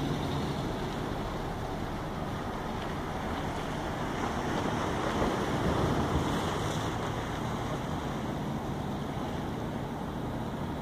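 Bay waves washing against the rocks at the foot of a seawall, with wind buffeting the microphone; the wash swells louder about four to six seconds in.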